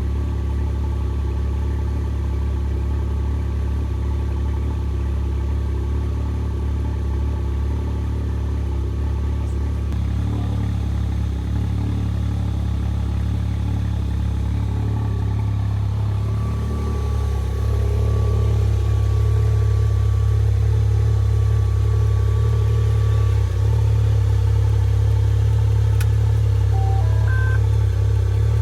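Can-Am Maverick X3 Max's turbocharged three-cylinder engine running steadily with a low hum, getting somewhat louder about two-thirds of the way through.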